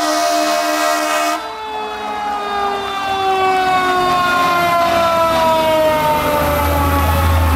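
Fire engine sounding a steady air-horn blast that cuts off about a second and a half in. Its siren then goes on in a slow, falling wail, winding down as the truck passes. The truck's engine rumbles close near the end.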